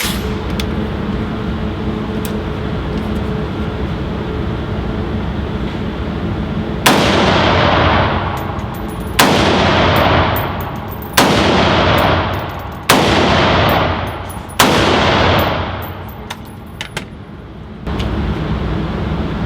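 Five shots from an Adams Arms AR-15 pistol with a 7.5-inch barrel, about two seconds apart, each dying away in a long ring. Steady background noise comes before the first shot.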